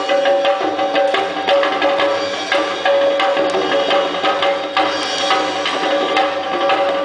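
Purulia Chhau folk dance music: fast, driving drumming under a sustained melody line that pauses briefly now and then.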